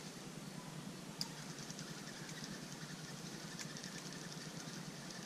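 Fishing reel being cranked as braided line winds onto the spool over a monofilament backing: a faint, steady mechanical whir with light, rapid ticking and one sharper click about a second in.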